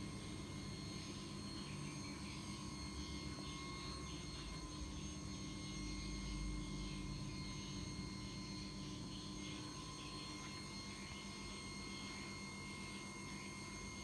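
A steady machine hum with several constant whining tones, unchanging throughout.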